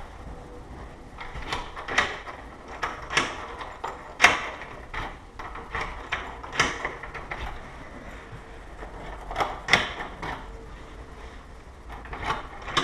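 Deadbolt lock and door being handled: a dozen or so sharp metallic clicks and knocks at irregular intervals.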